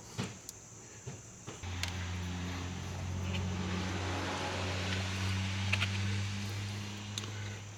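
A steady low mechanical hum starts abruptly about one and a half seconds in and dies away near the end, with a few small clicks around it.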